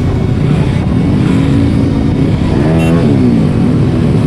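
Several old trail motorcycles' engines running and revving together, their pitches gliding up and down; about three seconds in, one engine rises sharply in pitch and then falls away.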